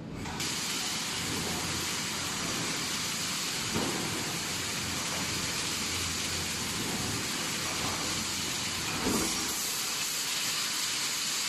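Automatic steel wire mesh welding machine running in the workshop: a steady hiss, with a heavy knock about four seconds in and another about nine seconds in.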